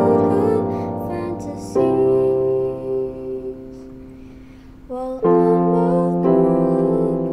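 Portable electronic keyboard played two-handed in a piano voice: held chords with a melody above, struck afresh about two seconds in and again twice near the end, dying away in between.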